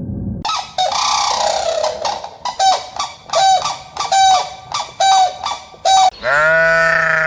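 Goose honking: a harsh call about half a second in, then a run of short honks a little more than one a second, and a longer drawn-out call near the end.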